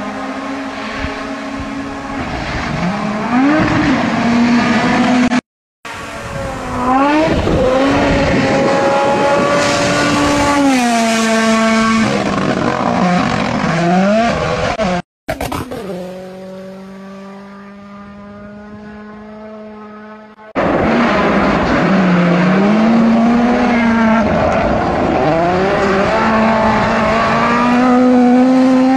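Rally car engines at full throttle on gravel stages, pitch climbing through the gears and dropping sharply as the drivers lift, over the hiss of tyres and flung gravel. Several passes follow one another, with the sound cutting out briefly twice and a quieter stretch of a steadier engine note partway through.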